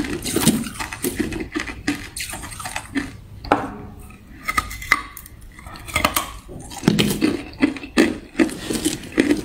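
Chunks of hard clear ice being bitten and crunched, a run of sharp, uneven cracks and crackles. Between bites, ice chunks clink and scrape against one another in a plastic bowl as more are picked out by hand.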